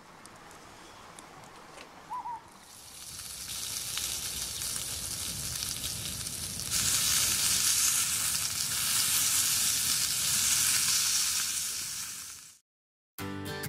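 Meat sizzling on a hot grill, building up from about two and a half seconds in, growing louder around seven seconds and cutting off suddenly near the end. A short two-note bird call sounds just before the sizzling starts.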